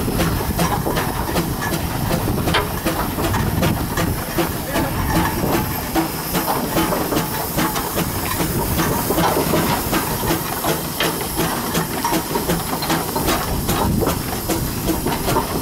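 1886 Scheidler steam traction engine running under way, hissing steam with a quick, even beat of exhaust chuffs.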